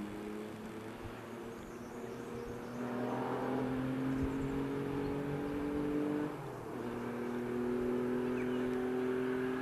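Distant classic rally car accelerating hard along a tarmac stage. The engine note climbs steadily, drops sharply at a gear change about six seconds in, then climbs again.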